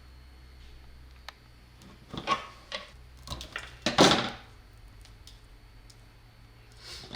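Hand-handling noises of small parts being assembled: a few short clicks and rustling scrapes in a cluster from about two seconds in, the loudest near four seconds, and one more near the end, over a faint steady electrical hum.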